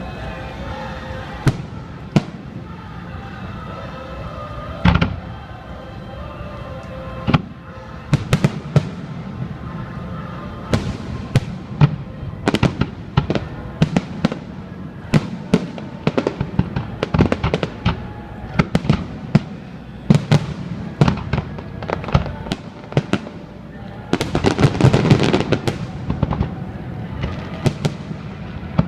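Fireworks display: aerial shells bursting, a few scattered bangs at first, then a rapid string of bangs from about eight seconds in, with a dense flurry of bursts near the end.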